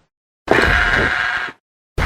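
Barbaridactylus pterosaur vocalization from Prehistoric Planet's creature sound design: one rough call about a second long, starting about half a second in, and a second similar call beginning right at the end.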